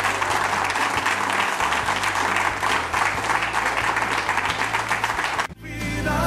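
A group of people applauding, a dense steady patter of hand claps, with music underneath. The applause cuts off abruptly about five and a half seconds in, and music starts.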